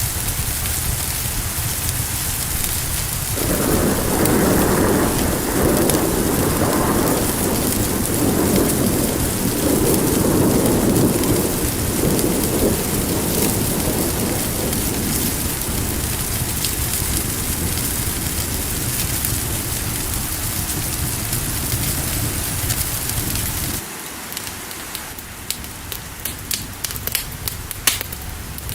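Steady heavy rain with a long rolling rumble of thunder that swells a few seconds in and fades over about eight seconds. Near the end the rain drops away and the sharp pops of a crackling fire come through.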